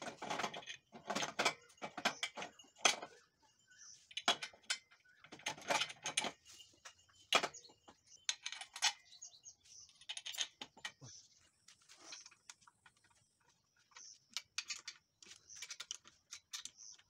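Metal clicking, clinking and scraping as a spanner works on the lower end of a homemade steel woodworking spindle assembly, in irregular bursts with short pauses.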